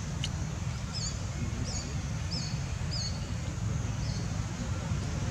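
A small bird repeating a short, high chirp that falls in pitch, about six times, over a steady low rumble, with a single sharp click near the start.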